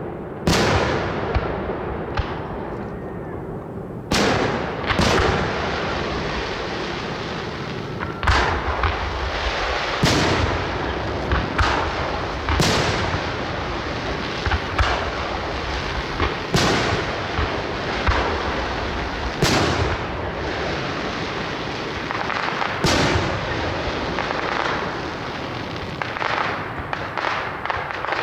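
Fireworks display: sharp bangs of bursting fireworks every one to three seconds over a continuous crackling haze, with a quick run of smaller pops near the end.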